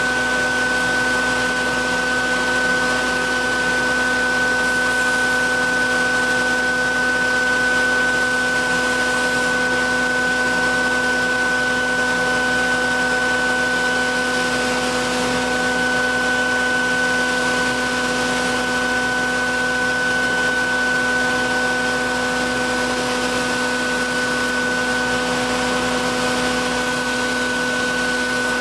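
Belt grinder running steadily during knife sharpening: a constant motor whine with an even hiss over it.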